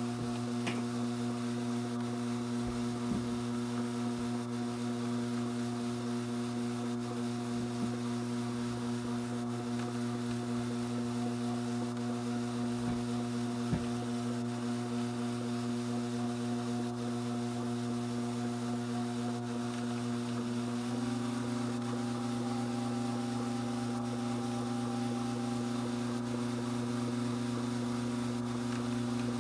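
Strauch Mad Batt'r electric drum carder running at about half speed, its motor giving a steady hum that steps slightly higher in pitch about two-thirds of the way through, with a few faint clicks.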